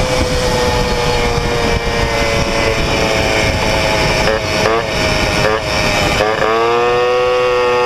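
Peugeot 103 moped's Metrakit 70cc two-stroke engine pulling hard at high revs on a test ride, its pitch held nearly constant by the variator. A little past the middle the revs waver and dip briefly, then the engine comes back up and holds a strong, steady note near the end.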